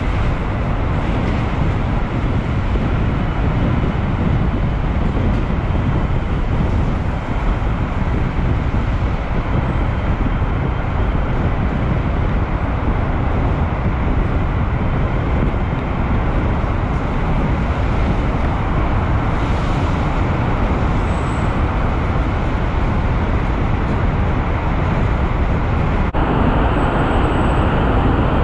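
Steady road and engine noise of a car driving through a rock tunnel, heard from inside the car. The tone of the noise changes abruptly near the end.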